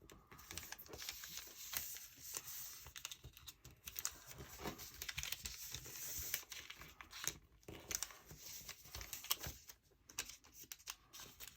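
Sheet of origami paper being folded and creased by hand, with light irregular rustling and crinkling and small taps of fingers on the paper and table.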